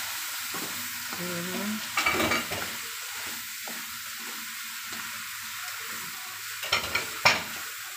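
Shrimp and garlic sizzling in butter in a large aluminium wok as they brown, with a wooden spatula stirring and scraping against the pan. There are louder scrapes about two seconds in and again near the end.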